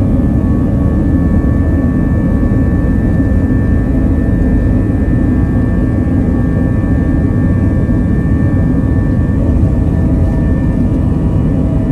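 Airbus A321's jet engines at high power during the takeoff roll, heard from inside the cabin: a loud, steady rumble with faint thin whines above it.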